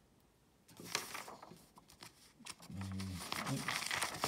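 Sheets of paper rustling and crackling as they are handled and slid about, loudest near the end, with a brief low murmur of a man's voice about three seconds in.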